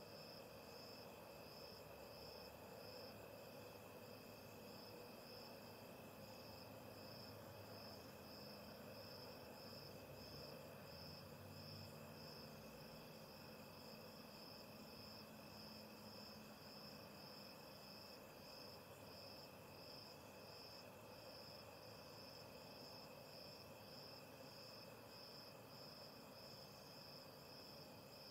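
Crickets chirping faintly outdoors at night: a steady, evenly pulsed high chirping that runs on without a break, over a second, steadier insect tone.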